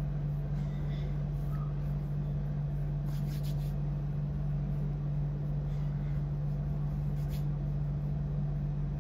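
Steady low hum at one fixed pitch, with a few faint brief rustles, once about three seconds in and once about seven seconds in.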